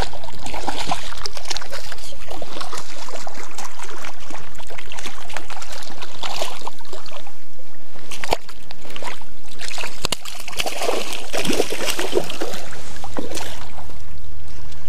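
Hooked fish splashing and thrashing in shallow water at the shoreline, with repeated sloshing splashes as it is played in to the bank.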